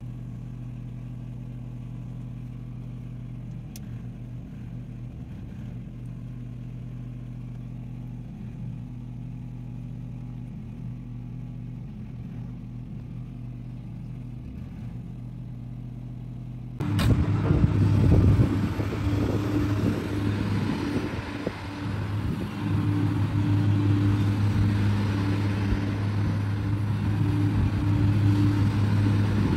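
Komatsu PC210-8 excavator's diesel engine running at a steady idle. About 17 seconds in it gives way to the excavator working, the engine much louder and its level rising and falling as the boom moves.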